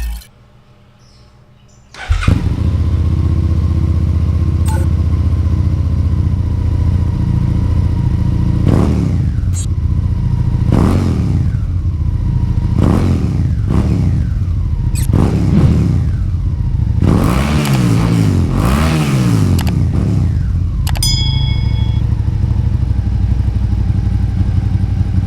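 Suzuki SV650's 645cc 90-degree V-twin starting about two seconds in and idling, then revved with a series of throttle blips, several in quick succession, before settling back to a steady idle.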